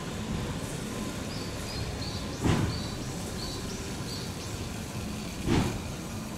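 Steady background noise with small bird chirps, broken by two dull thuds about three seconds apart.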